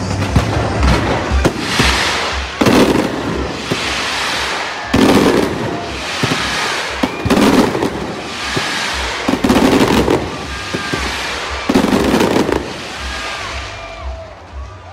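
Aerial fireworks display: about five deep booms of shells bursting two to three seconds apart, each followed by a long crackling, sizzling shower of glitter. It dies down near the end.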